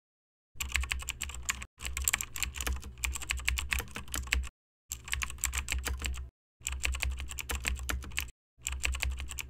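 Typing sound effect: rapid key clicks over a low hum, in several runs broken by short pauses.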